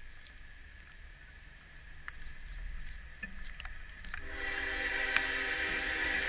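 Approaching diesel freight locomotive, its rumble slowly growing louder, then its air horn sounding about four seconds in and held steady as one long blast.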